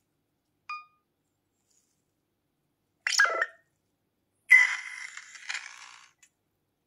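Nothing Phone (1)'s speaker playing short electronic ringtone previews from its built-in Nothing ringtones: a brief beep, a quick chirping glide about three seconds in, then a louder buzzy tone starting about four and a half seconds in that fades away.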